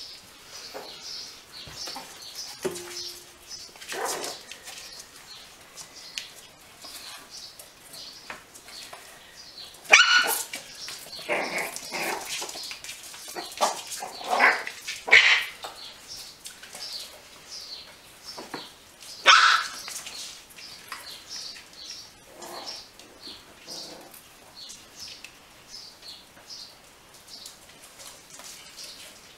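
Puppies yapping and barking in short, sharp bursts while play-fighting, the loudest yaps about ten seconds in, a cluster over the next few seconds, and another just before twenty seconds.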